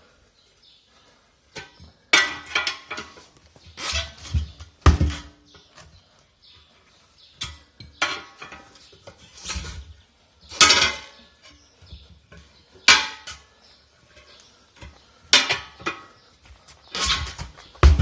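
Steel tire pry bars clanking and scraping against a steel truck wheel rim: sharp metallic clanks every couple of seconds, with short rattles in between.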